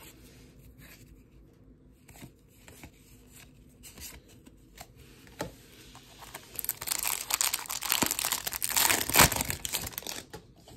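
Wrapper of a 2023 Topps Series 1 baseball card pack crinkling and tearing open: a dense crackle lasting about three seconds, after a few light clicks of handling.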